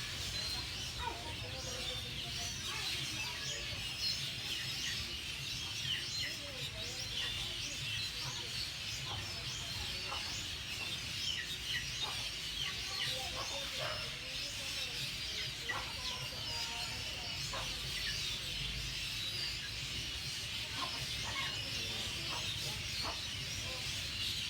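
A dense chorus of many small birds chirping continuously, with short high calls overlapping throughout and a few lower calls among them.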